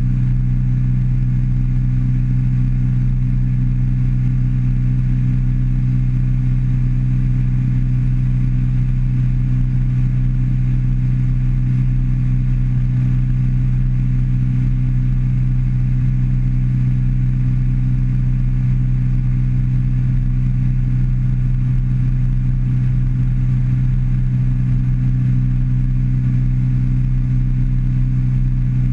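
150-horsepower outboard motor running at steady high throttle with the boat at planing speed: a constant low drone that holds one pitch throughout.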